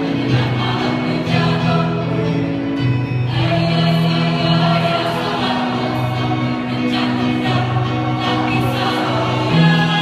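Choir singing in parts, holding long chords that shift to new notes every second or so.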